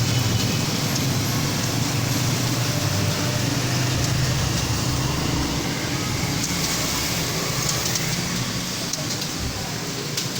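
Steady low background rumble and hum, with faint clicks of computer keyboard keys being typed, more noticeable in the second half.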